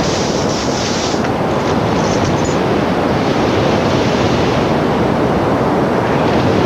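Loud, steady rushing noise with no clear pitch.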